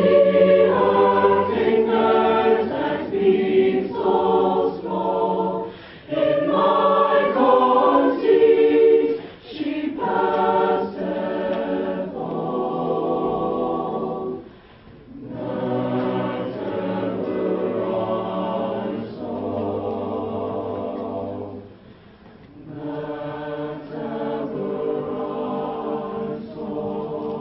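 A mixed choir of teenage boys and girls singing together, phrase by phrase with short breaths between the lines.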